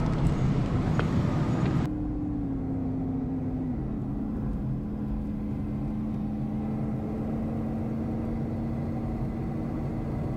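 Plastic packaging rustling and clicking for about two seconds, then a cut to a pickup truck cruising on the highway, heard inside the cab. Engine and road noise make a steady hum with a low drone that steps down in pitch twice soon after the cut.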